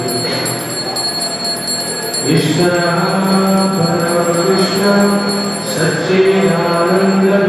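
Temple hand bell ringing continuously, with a group of voices chanting on held notes coming in about two seconds in.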